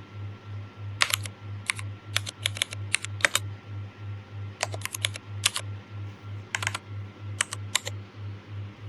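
Mechanical-keyboard key clicks played by the Mechvibes typing-sound app as keys are pressed, in four quick runs of sharp clicks with short pauses between them. A low pulsing hum runs underneath.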